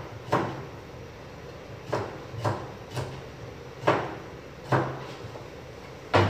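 Kitchen knife slicing a cucumber on a cutting board: the blade knocks sharply against the board about seven times, at an uneven pace.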